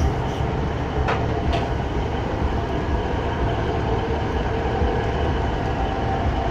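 Diesel multiple unit idling at a station platform: a steady low engine rumble with a faint held hum, and two short clicks about a second in.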